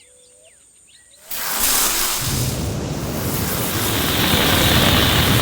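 A loud rushing noise with a deep rumble swells in about a second in and then holds steady, like a wind, surf or rumble sound effect.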